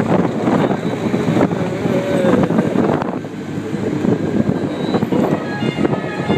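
Riding in an open cocotaxi: the motor tricycle's small engine runs steadily under wind buffeting the microphone, with street traffic around it. A few short high-pitched notes sound near the end.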